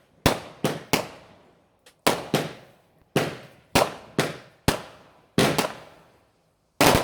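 Fireworks going off: about a dozen sharp bangs in quick, uneven succession, each fading with a short echo.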